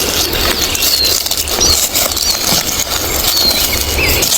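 Dry leaf litter and undergrowth rustling and crackling as a forager moves and picks mushrooms on the forest floor, over a steady low wind rumble on the microphone. A few short high bird chirps come through.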